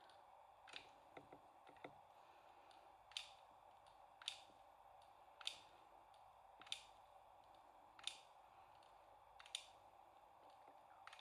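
Faint clicks of a small hot glue gun's trigger as glue is fed out, about one every second, over a faint steady hum.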